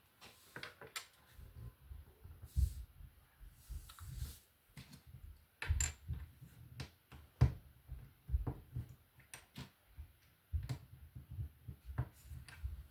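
Plastic LEGO pieces being handled and pressed together: irregular small clicks and taps, many with a dull knock on the table beneath them.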